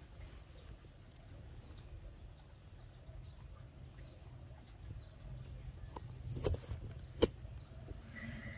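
Outdoor forest ambience: a steady low rumble with faint high chirps scattered through it. Two sharp clicks come a little over halfway in, the second the loudest.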